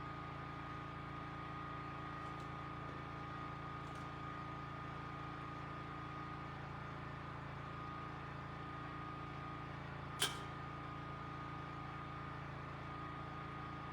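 Generator running steadily, a constant hum with a few fixed tones. One short sharp click about ten seconds in.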